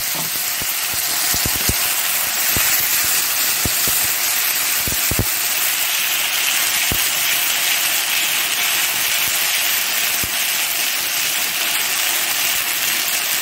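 Ginger, onion, tomato and garlic masala paste sizzling steadily in hot oil in a steel wok as it fries, stirred with a metal spatula that clicks now and then against the pan.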